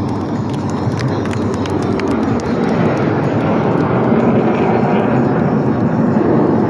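Military demonstration jets flying past, their engines making a steady rushing noise that grows a little louder over the last few seconds.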